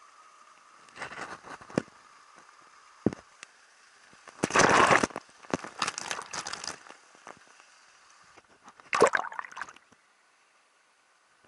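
Water splashing and sloshing in irregular bursts, loudest a little before the middle.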